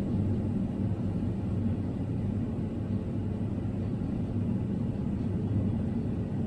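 Fendt 942 Vario tractor running steadily under load while baling, heard from inside its cab as an even low drone.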